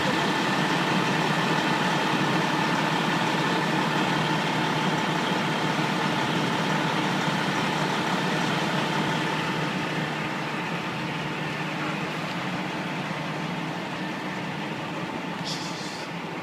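A vehicle engine idling steadily, with a constant hum over the running noise; it cuts in abruptly and eases off slightly toward the end.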